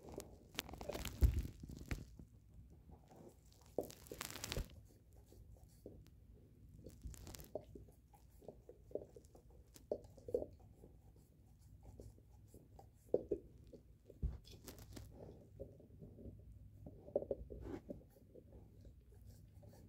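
A Great Pyrenees gnawing a beef marrow bone: irregular scraping and crunching of teeth on bone. A few louder sharp cracks come in the first five seconds, then softer, scattered gnawing.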